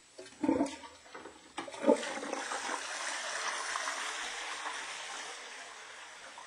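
Two knocks, then a rush of running water that slowly dies away over about four seconds.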